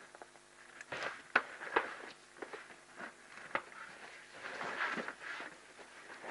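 Two African elephants sparring: a few sharp knocks of tusks clacking together, the loudest about a second and a half in, then scuffling and crackling of brush and ground as they shove.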